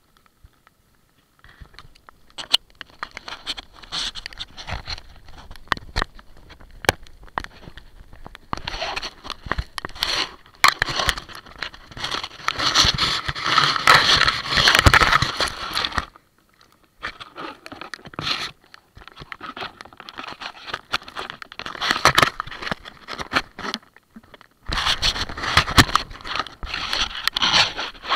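Close scraping and crackling rubs against the camera's housing, with many sharp taps scattered through. The rubbing is loudest and densest about halfway through, when something presses over the lens, and stops briefly near the start and about two-thirds of the way in.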